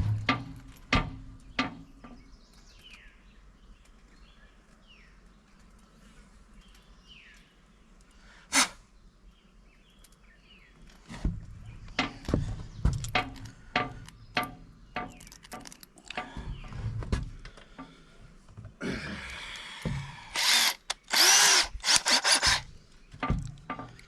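Clicks and knocks of screws and a driver being handled, then near the end a few seconds of a power drill spinning up to drive a self-drilling tech screw into metal.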